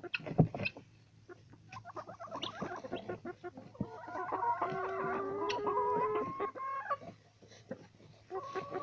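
Chickens clucking with short calls, then several overlapping drawn-out calls from about four to seven seconds in.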